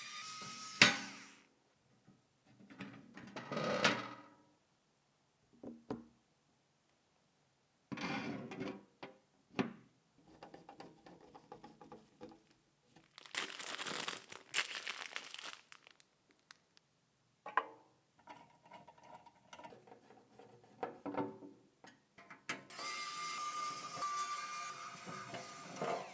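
Small computer parts being handled and fitted, with sharp clicks and knocks. About three seconds from the end, a small electric screwdriver whirrs steadily.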